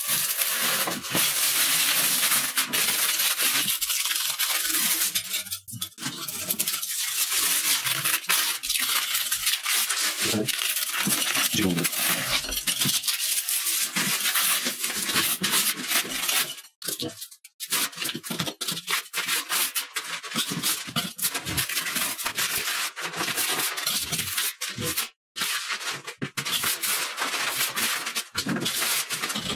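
Old paper wallpaper being scraped off a plaster wall with a metal putty knife and pulled away: a dense run of quick scratching strokes and paper ripping, broken briefly a little past halfway and again near the end.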